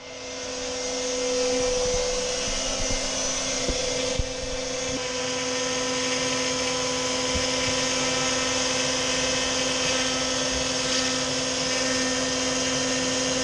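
DeWalt trim router on an X-Carve CNC machine cutting plywood, with a shop vacuum pulling dust through the hose on the router's dust shoe. It makes a steady whine over a hiss, fading in over the first two seconds, with a few light knocks about four seconds in.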